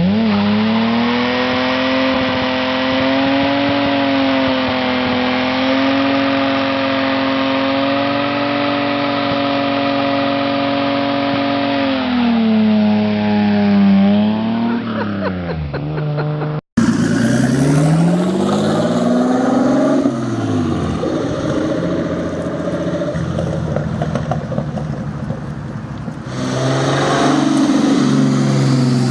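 Datsun 240Z engine rises in revs and then holds them high and steady while the rear tyres spin in a burnout. The revs drop about twelve seconds in. After a sudden cut, a turbocharged Datsun 240Z revs up and down several times as it drives off.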